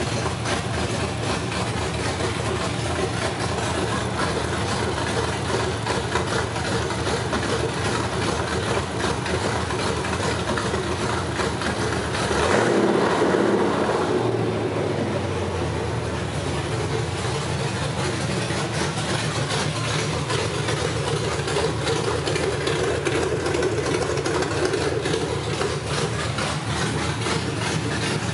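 Ford 5.4-litre V8 fitted with aftermarket camshafts and long-tube headers, idling steadily, its vacuum lines connected and no vacuum leaks. About twelve seconds in it swells louder for a second or two.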